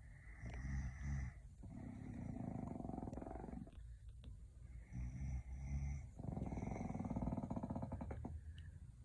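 A sleeping pet snoring, two slow breathing cycles, each a shorter sound followed by a longer rattling snore.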